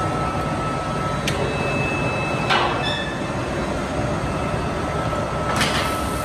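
Steady machine noise in a metalworking shop, with a faint high tone held throughout. Three sharp clanks come about one, two and a half, and five and a half seconds in, the middle one ringing briefly.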